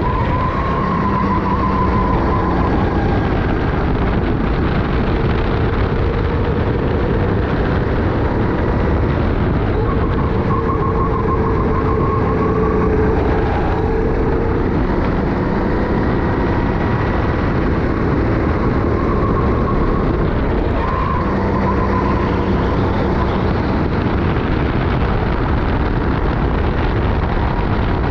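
Sodi racing kart engine running hard on track, heard from the driver's position over a dense rush of wind and road noise. The engine note drifts up and down with the throttle through the corners.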